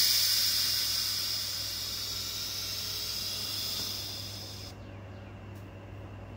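A loud hiss starts suddenly, loudest at first, fades gradually and cuts off after nearly five seconds, over a steady low hum.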